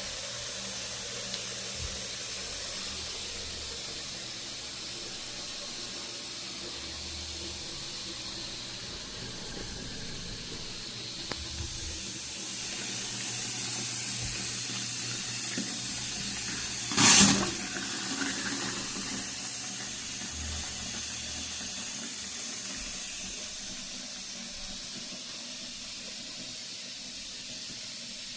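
Water running steadily in a newly installed bathroom vanity sink, filling and draining through its new 1.5-inch PVC trap as a leak test. One brief loud noise about two-thirds of the way through.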